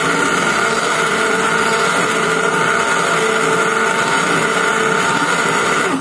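Hand-held immersion blender running steadily in a pot of cooked lentil soup, puréeing it smooth; the motor stops abruptly at the very end.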